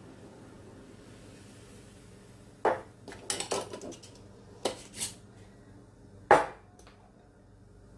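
A thin stream of cornstarch and milk slurry pouring faintly into the soup at first, then a glass mason jar and its metal lid clinking and knocking against the pan and counter: several sharp clinks over a few seconds, the loudest about six seconds in.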